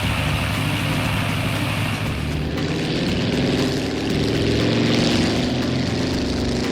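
Cartoon vehicle engine sound effect running steadily, changing to a brighter, slightly rising tone about two and a half seconds in.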